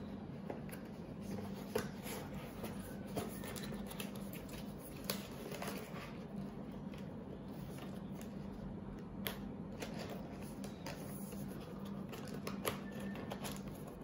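Typing on a mechanical keyboard fitted with Akko OSA-profile World Tour Tokyo keycaps: a quick, uneven run of keystroke clacks.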